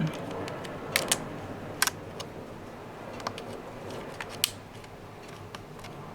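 A few sharp, separate light clicks and taps from handling a laptop and small tools, two close together about a second in and another near the middle, over a steady low background hum.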